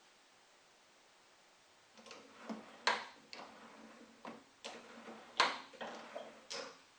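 A run of about eight short, irregular clicks and knocks after two seconds of near silence, the loudest about three seconds in and again about five and a half seconds in.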